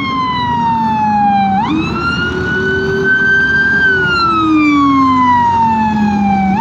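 Electronic emergency siren sounding a slow wail. Its pitch slides down, jumps back up about a second and a half in, climbs gently, then slides slowly down again over the last few seconds. A lower tone follows the same rise and fall, over steady traffic and road noise.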